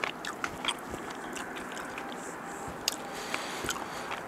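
A person chewing a mouthful of tender braised pork, with a scatter of short, light clicks from a fork against the bowl.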